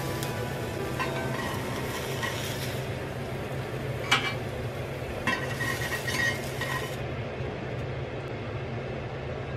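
Pineapple rings sizzling in oil in a cast-iron pan, with a sharp click about four seconds in and a few clattering knocks a second later as tongs lift the rings out against the pan. The sizzling thins out about seven seconds in, over a steady low hum.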